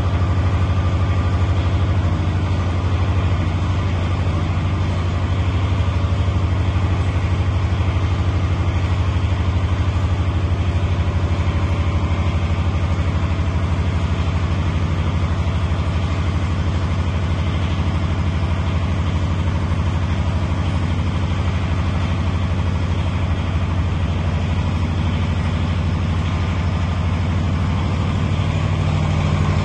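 Trime X-Tower light tower's generator engine running steadily at constant speed.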